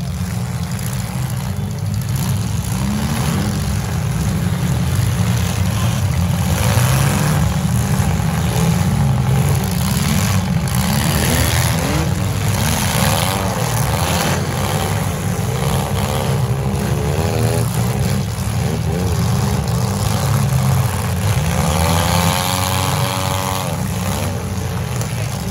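Engines of several compact demolition-derby cars running and revving hard, with a heavy rumble throughout and a few crunching impacts as the cars ram each other; the revving rises and falls most plainly in the second half.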